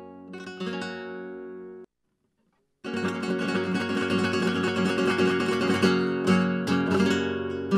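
Background music on acoustic guitar: plucked notes ringing out, a gap of about a second of silence, then busier strummed guitar.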